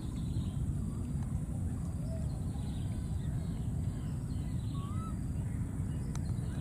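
Faint, short animal calls scattered over a steady low rumble; a few of the calls rise or bend in pitch.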